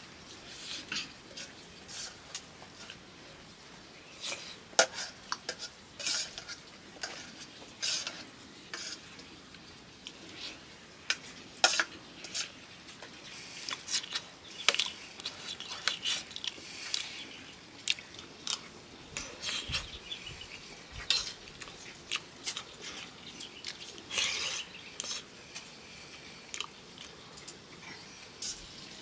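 Metal utensils clinking and scraping against pots and dishes in a quick, irregular series of sharp clinks, some louder than others.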